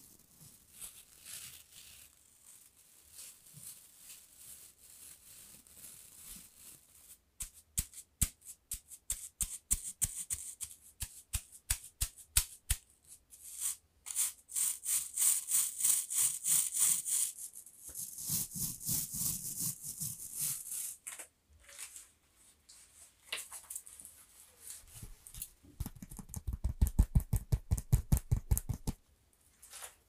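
Close-miked ASMR handling sounds. Soft brushing comes first, then quick runs of taps and a stretch of hissy bristle scratching. Near the end there is a fast run of deep, loud thumps.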